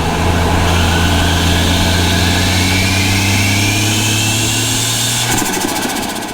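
Ford Barra 4.0-litre turbocharged inline-six under load, its engine note climbing slowly with a rising turbo spool whistle. About five seconds in the throttle is lifted and the turbo flutters.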